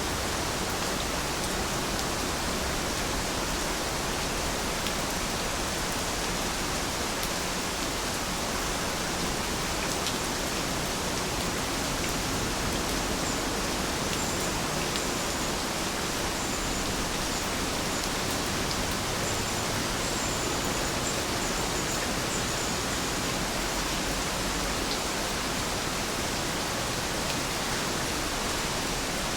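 Steady rain falling, a dense, even hiss that does not change. Faint short high chirps sound now and then through the middle.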